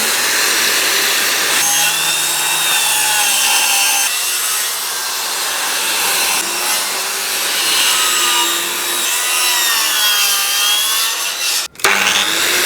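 Corded circular saw ripping a long length of 140 by 35 timber down to 125 mm, the motor's whine wavering in pitch as it works through the cut. The sound stops for a moment near the end, then starts again.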